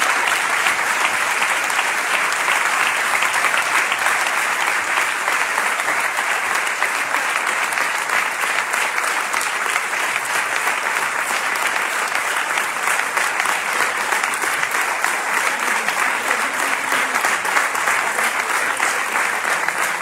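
Sustained applause from a full hall audience, a dense, steady mass of clapping that eases slightly toward the end.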